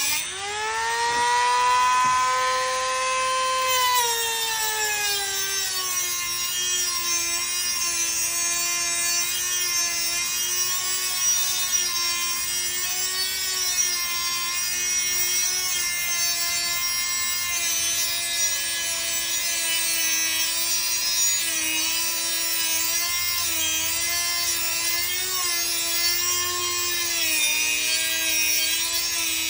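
Dremel rotary tool with a cutoff wheel cutting through a metal rod of a wire plant stand. A high motor whine that rises as the wheel spins up at the start, then drops in pitch and holds, wavering slightly, as the wheel bites into the metal, with a grinding hiss.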